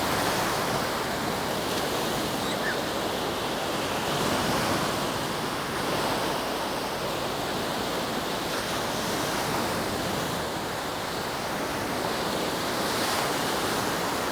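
Gentle surf: small waves washing up a sand beach in a steady rush that swells and eases now and then.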